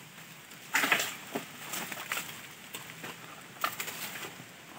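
Dry bamboo and brittle undergrowth being pulled loose and hacked with a bolo: a loud crack and rustle about a second in, then several lighter, irregular snaps and knocks of dry wood.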